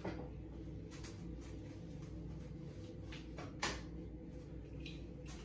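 A wall light switch clicked on once, about three and a half seconds in, with a couple of faint knocks before it, over a steady low room hum.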